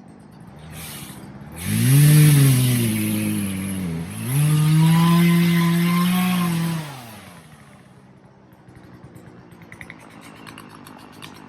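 Gas chainsaw revved up twice, each run lasting two to three seconds, its pitch rising, holding and dropping back.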